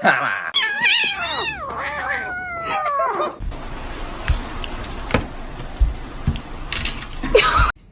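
A cat meowing in several wavering, falling calls for about three seconds. Then comes a steady hiss with scattered knocks and clicks, which cuts off suddenly near the end.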